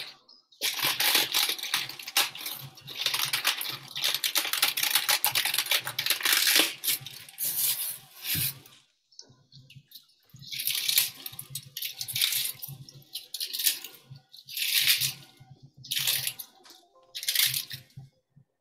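Cabbage leaves being torn apart by hand: a long run of tearing for about eight seconds, then a string of shorter tearing bursts with pauses between them.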